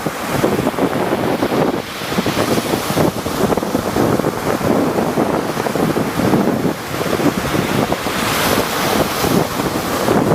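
Rough sea waves breaking and washing in continuously, with wind buffeting the microphone.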